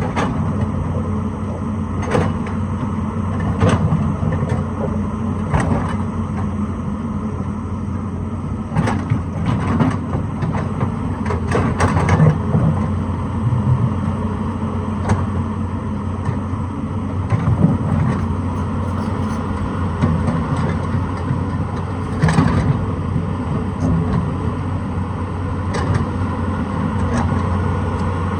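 Excavator's diesel engine running steadily under load, with irregular sharp knocks and clanks every few seconds.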